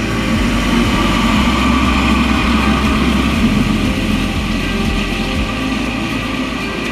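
Boeing 777-200's jet engines running at taxi power as the airliner rolls past close by, a steady loud rumble and whine that swells about two seconds in and then eases slightly.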